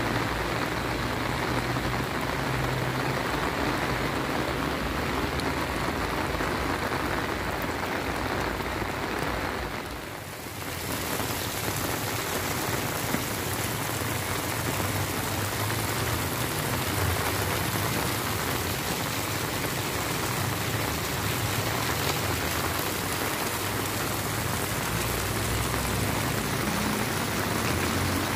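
Heavy rain falling steadily on wet streets and pavement, a continuous hiss of raindrops. It briefly dips about ten seconds in, then carries on a little brighter.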